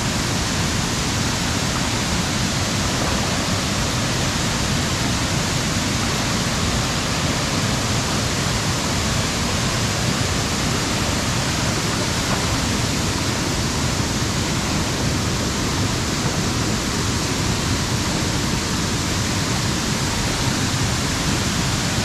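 Waterfall pouring close by: a steady, loud rush of falling water.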